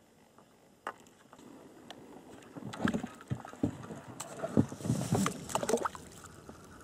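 A small hooked fish thrashing and splashing at the water's surface as it is hauled up on a side-nod rod, a run of irregular splashes from about three seconds in, after a single sharp click about a second in.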